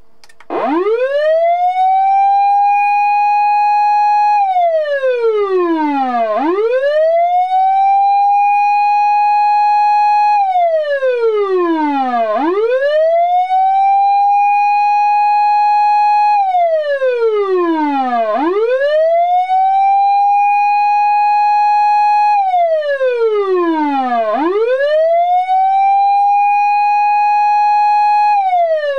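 Osaka Siren MK-11 electronic fire-engine siren amplifier sounding its loud wail tone. Each cycle climbs quickly from a low to a high pitch, holds there for a few seconds, then slides steadily back down, repeating about every six seconds. It starts about half a second in.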